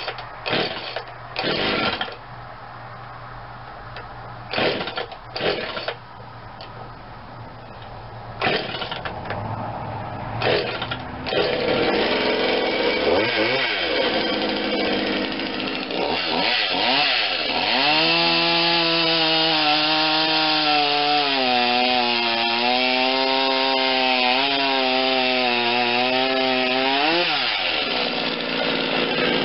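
Two-stroke chainsaw with a freshly sharpened chain, idling with a few short bursts of throttle, then revving up. It runs at full throttle for about ten seconds while cutting a log, its pitch sagging and wavering under the load, before dropping back to idle near the end.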